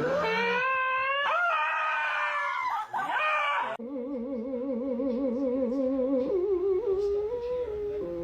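Dog howling in long pitched glides that rise and bend. About four seconds in, the sound changes abruptly to a steadier, evenly wobbling tone.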